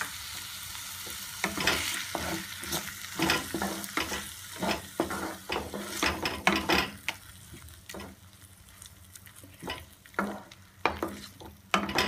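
A wooden spatula stirs and scrapes cashew paste into fried onions in a non-stick kadai, over a light sizzle. The strokes come quickly for several seconds, then thin out to a few near the end.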